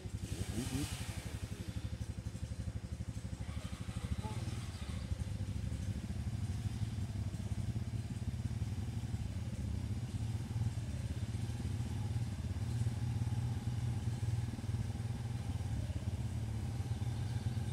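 ATV engines running steadily, a low, even drone.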